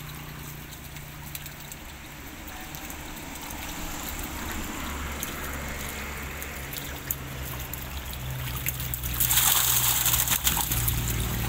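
Water trickling and sloshing in a tarpaulin tank crowded with catfish. About nine seconds in comes a louder, splashing pour lasting over a second as a hand-net full of catfish is lifted out and water streams off it.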